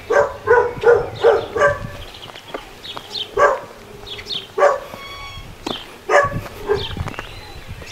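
A dog barking: a quick run of five barks in the first two seconds, then single barks every second or so.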